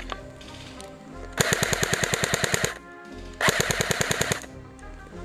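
King Arms Thompson airsoft electric gun with a drum magazine firing two full-auto bursts, the first about a second and a half long, the second about a second, at roughly a dozen shots a second.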